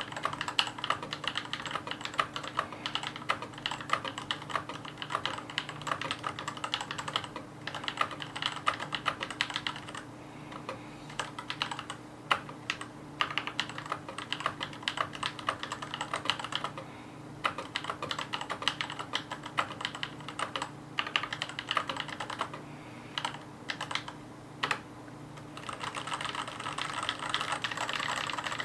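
Mechanical keyboard being typed on: fast, continuous keystroke clicks, thinning in the middle stretch to scattered single key presses before quick typing picks up again near the end.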